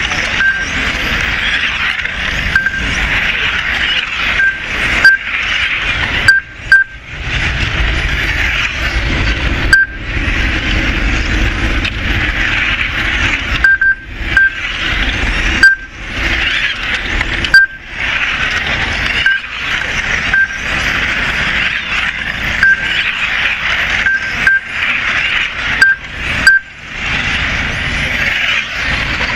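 Modified-class 1/10 electric touring cars racing: a steady, dense high whine and hiss from their brushless motors and tyres on asphalt. Short identical high beeps recur every second or two, typical of the lap-timing system registering cars crossing the line.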